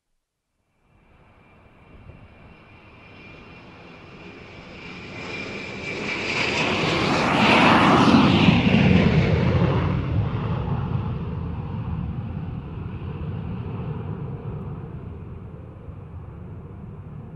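Jet airliner's engines at takeoff power going past: the sound builds from nothing over several seconds with a high whine, peaks about eight seconds in with a falling pitch as the aircraft passes, then slowly fades.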